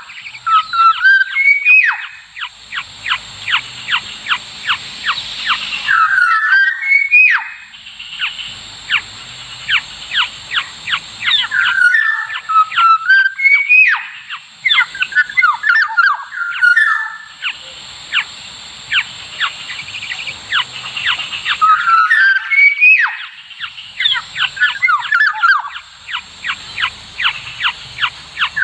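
Kepodang emas (black-naped oriole) calls, the fledgling-family lure call: short whistled gliding notes followed by a fast run of harsh chattering strokes. The same cycle repeats nearly unchanged about every seven to eight seconds, like a looped recording.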